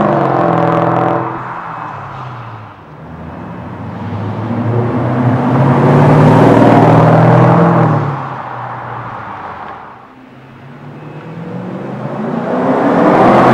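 Mercedes-Benz W212 E500's V8 breathing through an MEC Design stainless-steel aftermarket exhaust, "Earthquake" sound version. It accelerates hard away at first, then passes fast, swelling to a loud peak about midway and fading. Near the end another pass builds with rising revs as the car accelerates in.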